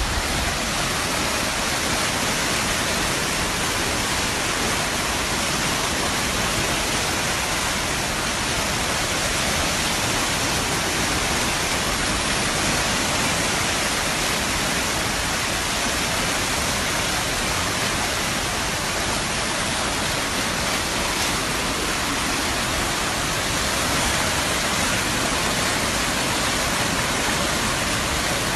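Steady, unbroken rush of water at a constant level.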